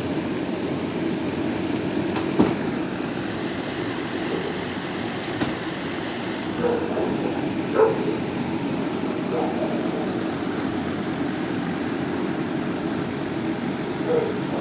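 Steady hum of a shelter kennel room, with a few short, faint barks from dogs scattered through it and a couple of sharp clicks.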